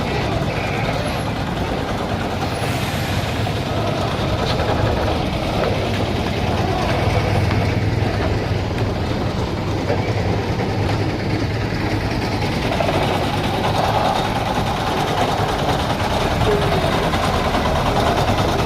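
Heavy tanker truck on the move: a steady engine and road rumble that stays even throughout.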